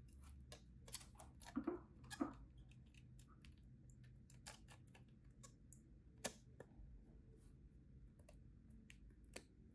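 Scattered small clicks and taps from Iris split-keyboard parts being handled during assembly, with a few louder clicks about two seconds in.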